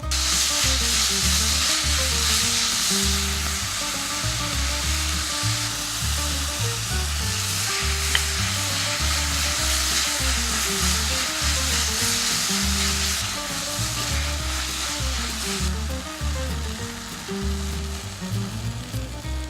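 Food sizzling and frying in hot olive oil in a pan, a steady hiss that starts suddenly and eases near the end, with one sharp click about eight seconds in. Background music with a steady beat plays underneath.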